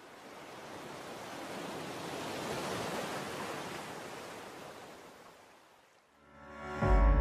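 A rushing swell of noise like surf, rising for about three seconds and then fading away. Music with a deep bass note comes in near the end.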